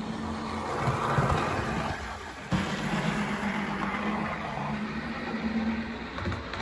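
Bachmann 00 gauge Class 47 model diesel locomotive running on DC: a steady motor hum with wheel and track noise over it. There is a sharp click about two and a half seconds in.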